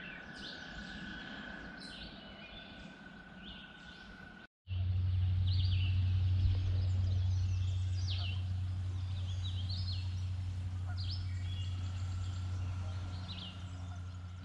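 Songbirds chirping and calling, many short notes throughout. From about four and a half seconds in, a steady low rumble comes in under the birds and is the loudest sound.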